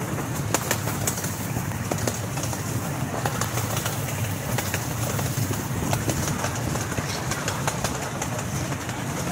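Amusement-park ride train running along its track: a steady low locomotive rumble with the cars rattling and many irregular sharp clicks from the wheels and couplings.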